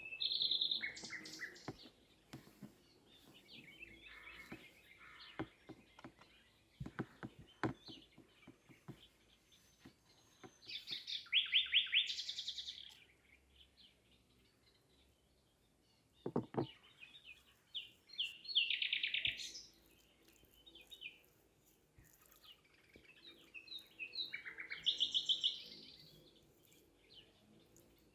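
A songbird singing loud, rapid trilled phrases, one every six seconds or so. A few short knocks sound between the phrases.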